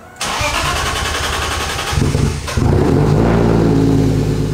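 Turbocharged M52 straight-six in a BMW E30 running through a new 3-inch stainless-steel turbo-back exhaust. About two seconds in the note steps up and settles into a louder, steady run.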